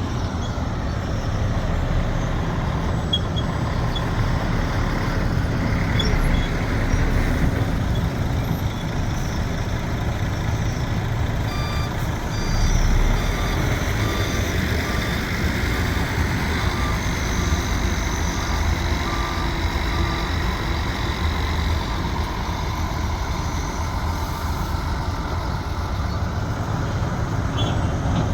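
Heavy diesel engine of earthmoving machinery running steadily, with a repeating electronic warning beep for several seconds partway through.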